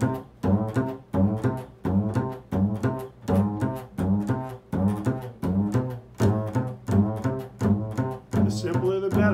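Upright double bass plucked pizzicato in an improvised line, low notes in a steady rhythm of about two a second, each note ringing and decaying before the next.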